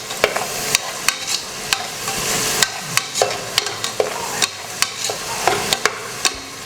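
Chopped onions sizzling in hot oil in a pressure cooker as they are sautéed and stirred, with the stirring utensil knocking and scraping sharply against the pot every second or so.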